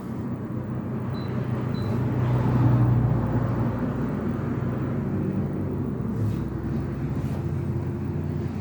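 Steady low background rumble with a hum, swelling a little about two to three seconds in.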